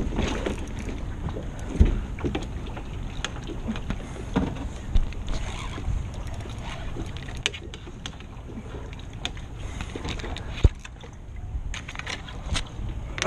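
Wind buffeting the microphone over water sounds around a fishing kayak, with scattered knocks and clicks of gear against the hull, loudest about two, four and a half, five and ten and a half seconds in.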